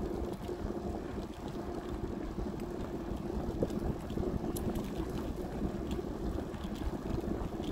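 Wind buffeting a handheld phone's microphone while walking: a steady, fluctuating low noise with a faint hum beneath it and a few faint ticks.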